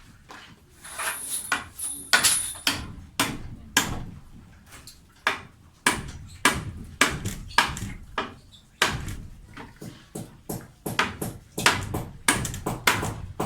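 Repeated hammer blows at an uneven pace of about two to three a second, coming closer together in the second half; a few strikes early on carry a high metallic ring.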